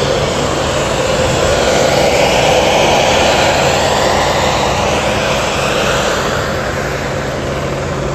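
Helicopter flying overhead: a steady engine and rotor hum under a broad rushing noise that swells a couple of seconds in and eases a little near the end.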